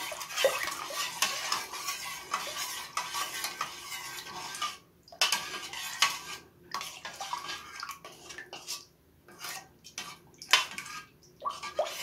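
A spoon stirring syrup in a metal saucepan, scraping and clinking against the pot's sides and bottom, with a few brief pauses. It is mixing red food colouring into tamarind and plum sharbat syrup.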